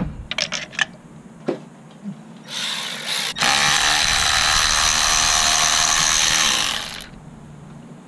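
Cordless electric ratchet running a spark plug socket to back a spark plug out of the cylinder head: a few tool clicks and clanks, a short burst ending in a sharp click, then the ratchet motor runs steadily for about three and a half seconds and stops.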